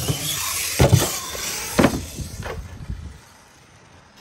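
Electric RC monster truck driving on pavement: a rushing noise of tyres and drivetrain, with two sharp thumps about a second apart and a smaller one after, dying away about three seconds in.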